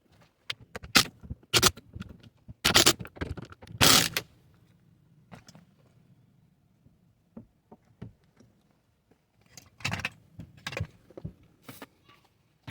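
Irregular clicks, clinks and short rattling scrapes of parts and tools being handled while working on a car door. They come in two clusters: a busy one at the start and another near the end, with a quieter stretch between.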